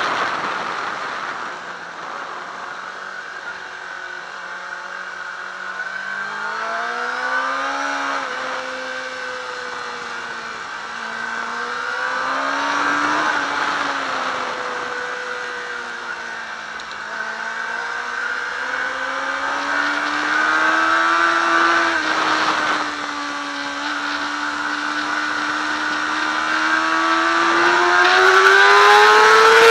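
Yamaha R6 sport bike's inline-four engine running at speed on track, its pitch rising and falling with the throttle and climbing steadily over the last several seconds. A steady rush of wind on the bike-mounted microphone runs under it.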